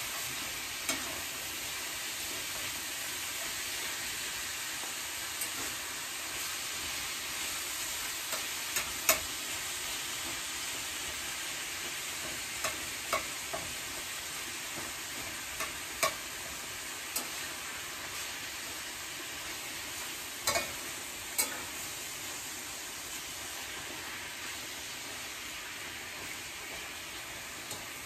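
Ground beef sizzling steadily as it browns in a skillet, with the scrape of a spatula stirring it and a dozen or so sharp clicks where the spatula knocks against the pan. The meat is nearly cooked through.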